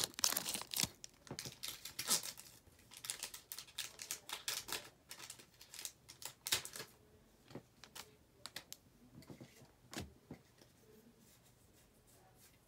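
Quick light clicks, taps and rustles of Pokémon trading cards and booster-pack wrapping being handled on a desk, thinning out to scattered ticks after about seven seconds.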